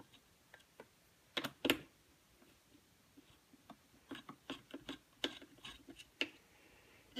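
Metal clicks and taps of a T-handle hex key turning screws in a Husqvarna 181 chainsaw's housing: two louder knocks about a second and a half in, then a run of lighter clicks, a few a second, near the end.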